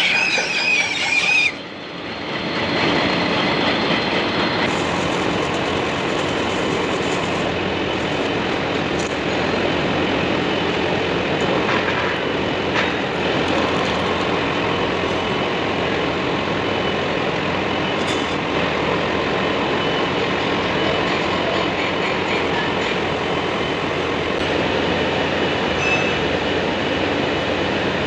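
Machinery running steadily with a dense metallic rumble, with a squeal in the first second or so.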